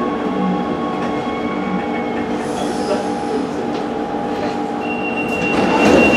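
Rome Metro Line A train heard from inside the carriage, its motors whining steadily with rolling noise as it comes into a station. A steady high tone starts near the end, and the doors slide open with a short rush of noise.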